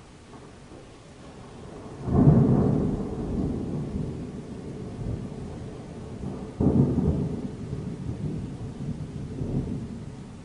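Thunder: a low rumble builds, then a loud clap about two seconds in rolls on and fades, and a second sharp clap about six and a half seconds in rumbles on with another swell near the end.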